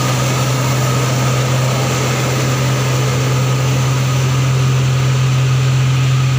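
Loaded dump truck's diesel engine pulling hard up a steep grade in low gear: a steady low drone that holds the same pitch and level throughout.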